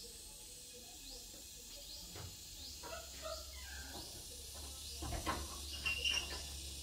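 Faint clicks and knocks of the plastic housing of a Ricoh 1027 copier developer unit being handled and fitted together, busiest near the end. A short high rising chirp repeats about once a second behind it.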